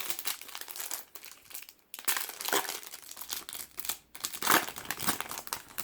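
Foil trading card pack being torn open and crinkled by hand, in irregular bursts of crackling with short pauses.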